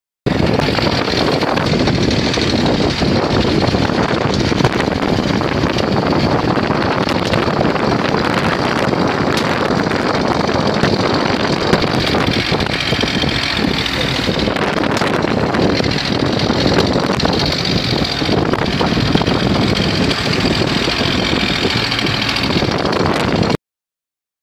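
Speedboat engine running steadily while towing a parasail, mixed with wind buffeting the microphone; the sound cuts off suddenly about a second before the end.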